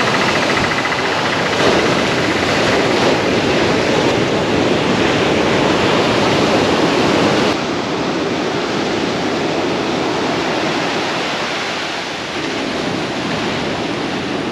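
Rough sea surf breaking and washing over a rock seawall, a steady rushing of water that drops a little in level about halfway through.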